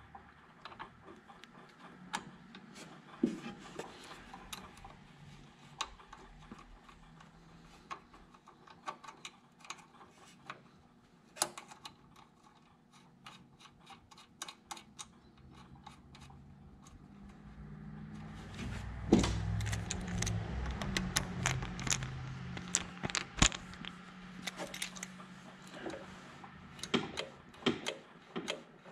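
Small metal clicks and rattles as a throttle cable and its clamp are fitted by hand to a Kawasaki V-twin's control bracket. Partway through, a low rumble swells up for several seconds, then fades back.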